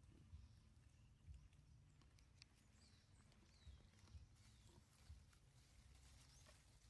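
Near silence: faint outdoor background with soft low thumps and a few faint, short high squeaks.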